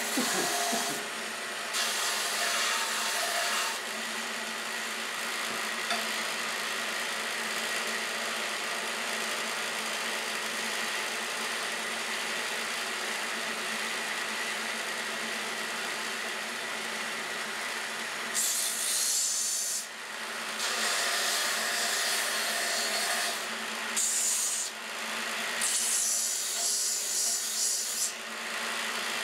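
Benchtop band saw running with a steady motor hum, its blade cutting through small pieces of wood. The cuts come briefly near the start and then as several short cuts in the last third, each heard as a burst of rasping sawing noise over the hum.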